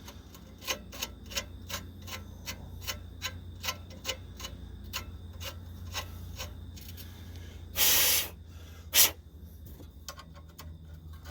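Ratchet clicking in an even run, about three clicks a second, as the new nut is run down onto the sway bar link stud. Near the end comes a brief half-second rush of noise, then one loud sharp click.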